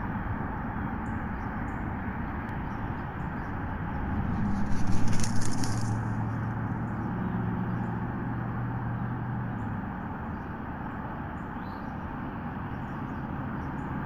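Bald eagle's wings flapping as it lands on its stick nest: a rapid series of wingbeats lasting about a second and a half, about four seconds in, over a steady low hum.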